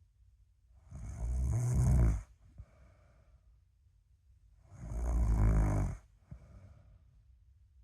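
A person snoring in sleep: two loud snores on the in-breath, about a second in and again around five seconds in, each lasting about a second and followed by a short, softer out-breath.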